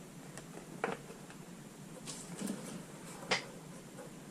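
Light handling noise from opening a cardboard collection box: a few small taps and two sharp clicks, one about a second in and a louder one a little past three seconds.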